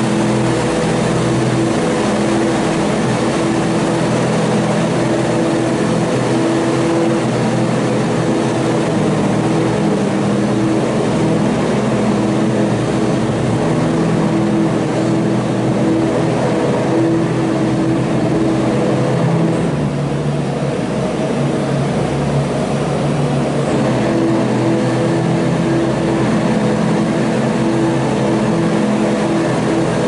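New Holland L170 skid-steer's diesel engine running steadily under load while its front-mounted sawdust spreader works. The note dips and shifts briefly about two-thirds of the way through.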